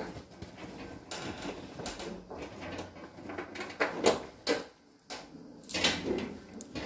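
Handling noise from a camera being carried and moved about: rustling with a few scattered knocks and clicks.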